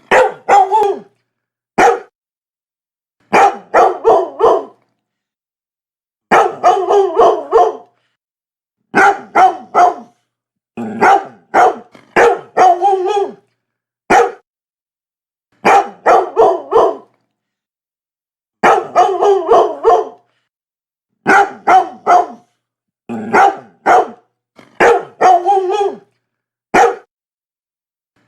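Labrador retriever barking in repeated bouts of one to six quick barks, with short silent gaps between bouts.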